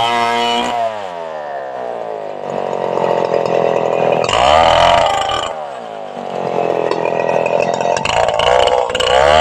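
Stihl two-stroke chainsaw engine at full throttle, dropping to idle about a second in, then revved up briefly in the middle and again near the end.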